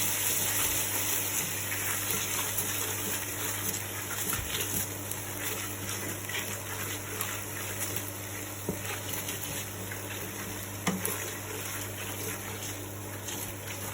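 Garlic and ginger paste sizzling in hot sesame oil in a pan, a steady hiss with a few faint knocks as it is stirred.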